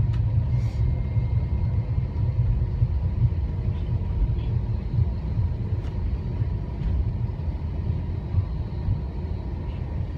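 Cabin noise inside an Airbus A321-200 rolling on the ground after landing: a steady low rumble, with a faint thin high tone over it.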